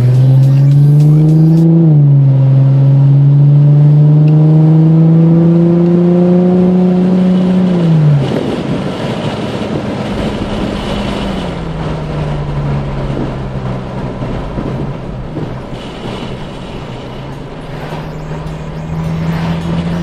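Infiniti G35x sedan's V6 engine accelerating hard, its pitch climbing steadily for several seconds, then dropping abruptly about eight seconds in as the throttle comes off. After that it is quieter cruising with road noise, the engine note rising and falling again a couple of times.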